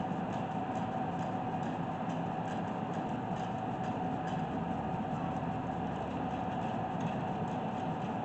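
Steady mechanical hum with one constant tone held through it and no distinct knocks or blows.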